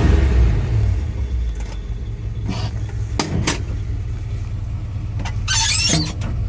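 1983 Chevy C20's carbureted 350 small-block V8 running just after a cold start without choke, its revs settling to a steady idle about a second in. A few light knocks come near the middle, and a brief high-pitched sound near the end.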